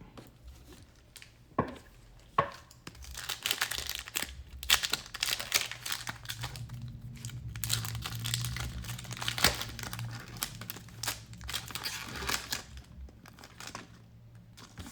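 Wrapper of a Prizm basketball card pack crinkling and tearing as it is ripped open and handled, a dense run of rapid crackles after a couple of sharp clicks.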